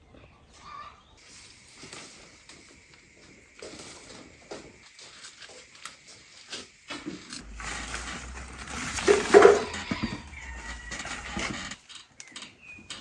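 Grape vine leaves rustling and stems snapping as leaves are picked off by hand, with many short snaps, loudest about nine seconds in.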